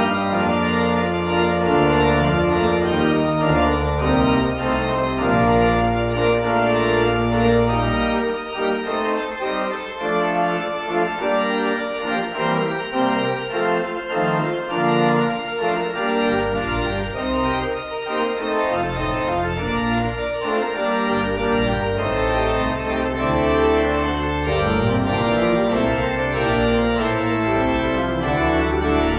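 A 1966 Wicks pipe organ (2 manuals, 21 ranks) plays a toccata in sustained, changing chords. The deep pedal bass drops out about eight seconds in and comes back about twenty seconds in.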